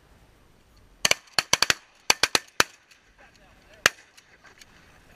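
A volley of shotgun blasts from several duck hunters firing at once: about ten shots crowded into a second and a half, then a single last shot about a second later.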